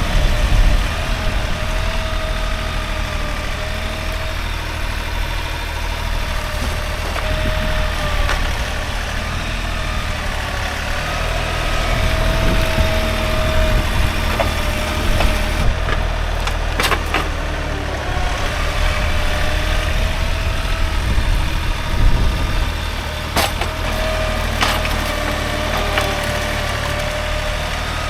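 An engine running steadily, its pitch wavering a little, with a few sharp wood-like cracks about two-thirds of the way through.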